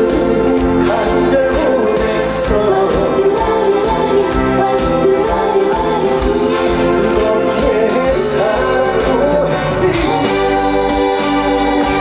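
Live trot music: a sung vocal melody over band accompaniment.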